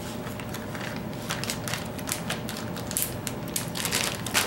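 Crinkling and rustling of packaging, plastic bait bags and packing paper, as hands rummage in a cardboard box. The crackles come irregularly and grow busier toward the end, closing with one sharper crackle.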